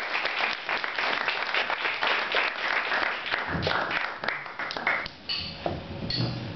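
A roomful of people applauding, dense clapping that thins out after about five seconds.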